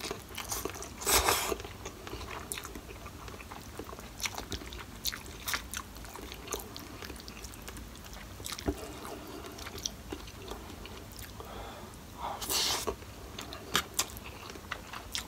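Close-miked eating sounds of instant noodles, fried tofu and rice: a slurp of noodles about a second in, then steady chewing with many small wet clicks, and another louder slurp or mouthful near the end.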